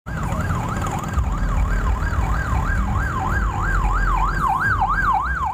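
Warbling siren tone sweeping up and down about three times a second, loud and steady, over a heavy low rumble.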